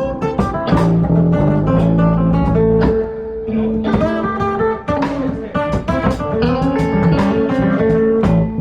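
Music led by a plucked guitar, playing a run of separate picked notes over a sustained low line.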